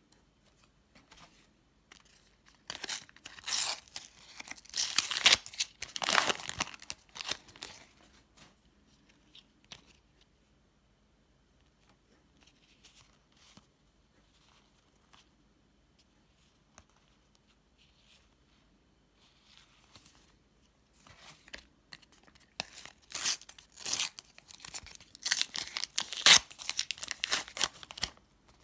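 Paper sticker packets being torn open and their wrappers crinkled, in two spells of tearing and rustling: one a few seconds in, one near the end, with faint handling in between.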